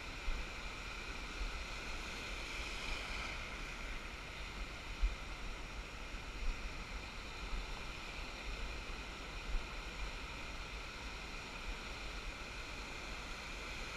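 Small waves breaking and shallow surf washing over a sandy beach, a steady wash of sea noise, with wind rumbling and gusting on the microphone.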